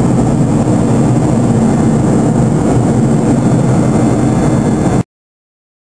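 Steady drone of a Boeing 737-200 Advanced's Pratt & Whitney JT8D turbofan engines in flight, heard inside the cabin, with a low hum under the rushing noise. It cuts off abruptly near the end.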